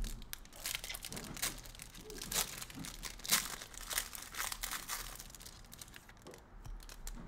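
Foil wrappers of Donruss basketball trading-card packs crinkling as a pack is handled and torn open, a dense run of irregular crackles.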